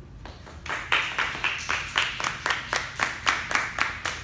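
Classroom audience clapping, starting under a second in, with sharp, evenly timed claps about four a second.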